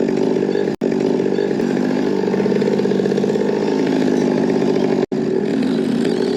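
Chainsaw engine running at steady revs, with the sound cutting out for an instant twice.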